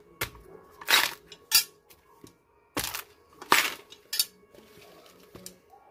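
Coconut husk being worked apart with a blade and by hand: about half a dozen short, sharp scraping and tearing strokes as the fibres are pried and ripped, the loudest about a second in and midway.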